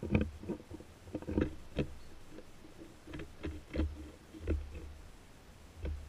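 Wind buffeting the action-camera microphone in uneven low rumbling gusts, with irregular light knocks and taps.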